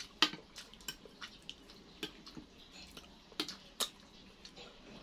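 Close-up eating sounds: a dozen or so scattered wet clicks and smacks of mouths and utensils, sharpest about a third of a second in and twice near three and a half seconds.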